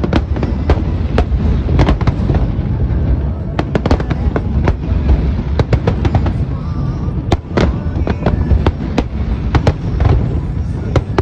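Fireworks display: many aerial shells bursting in quick, irregular succession, sharp bangs over a continuous low rumble.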